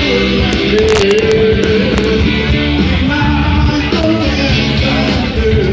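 Rock band playing loudly with a singer.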